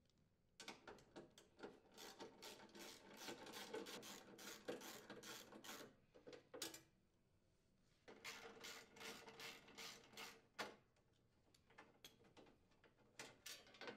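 Faint socket ratchet clicking in quick runs while unthreading the screws that hold a snowblower's plastic belt cover, in two long spells with a pause between them. A few scattered clicks and knocks near the end as the cover is handled.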